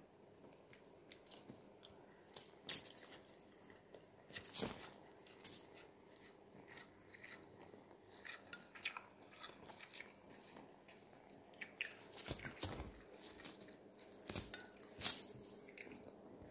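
Irregular close rustling, scratching and small clicks as a cat bites and paws at a feather wand toy, the feathers and beads brushing against fabric. The clicks are sharpest about three seconds in and again near the end.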